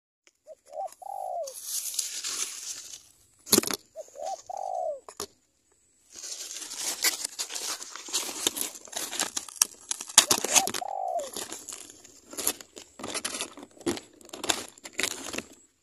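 Spotted dove cooing in three short phrases, near the start, about four seconds in and about eleven seconds in, over loud crackling and rustling noise broken by sharp clicks.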